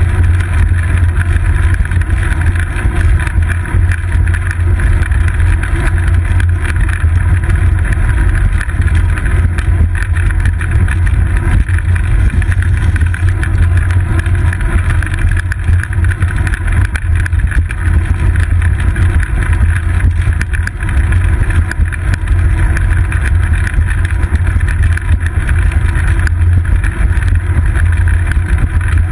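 Steady, loud low rumble of wind buffeting and road vibration picked up by a seat-post-mounted GoPro Hero 2 as the bicycle rolls along a paved path.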